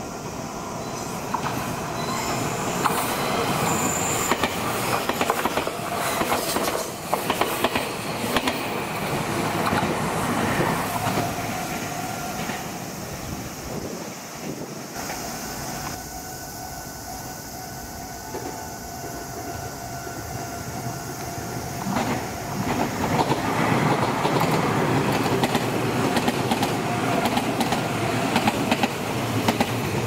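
Electric commuter train running past a railway level crossing, its wheels clattering over the rails, loudest in the first half; a second train approaches near the end. The crossing's warning bell rings steadily throughout.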